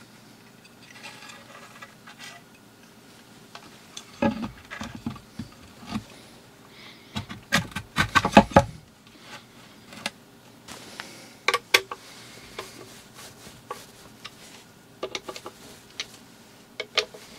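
Handling noise as a Fostex FE108Super full-range driver is fitted into a wooden speaker cabinet's baffle and screwed down with a screwdriver. Scattered knocks and clicks come thickest around the middle, with a few sharper clicks later on.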